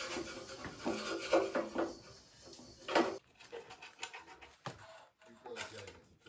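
Hand scraper rubbing and scraping old gasket and grease off greasy engine parts, a run of strokes for about two seconds, then a few sharp knocks as the stamped-steel timing cover is handled in a cardboard box.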